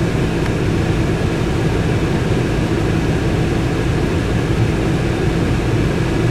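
Steady car-cabin noise: the engine running and the air-conditioning fan blowing, an even hum with a few steady low tones.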